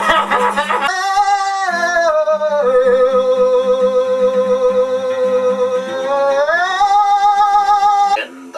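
A man singing long, high held notes over a strummed acoustic guitar. The note slides down a little over two seconds in, is held, slides back up about two-thirds of the way through, and stops suddenly just before the end.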